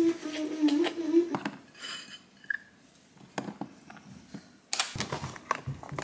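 Kitchen handling sounds: scattered clicks and knocks of plastic food containers being handled on a wooden cutting board while a lunchbox is packed.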